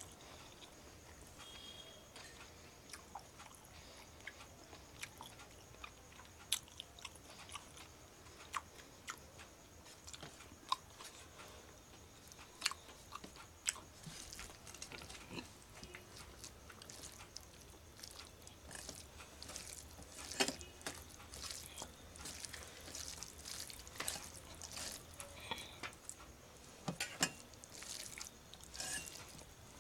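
A person eating rice and curry by hand from a steel plate: chewing and mouth smacks with scattered small clicks of fingers working the rice on the plate, coming more often in the second half.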